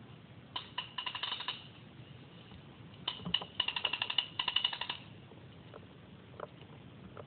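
A gun firing two rapid bursts of clicking shots, about a dozen a second: a short burst about half a second in and a longer one from about three to five seconds, opening with a couple of single shots.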